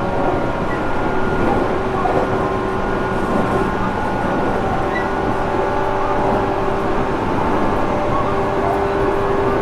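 Interior running sound of a JR Kyushu 415 series 1500-subseries EMU motor car: a steady rumble of wheels on rail with the traction motors and gears whining in several steady tones that hold their pitch. The train runs at a roughly constant speed. This car is one noted for an unusual running noise.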